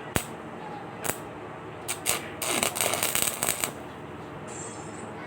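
A few sharp clicks, then a welding arc crackling in one short burst of about a second, about halfway in.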